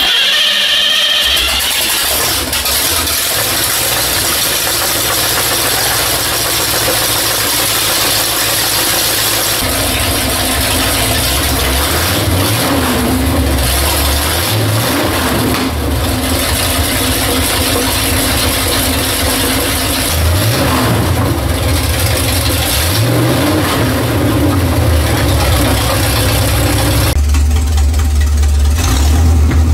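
Chevrolet 454 big-block V8 on an engine run stand, breathing through open exhaust pipes, catching at the start and then running loud. It is revved up and down several times.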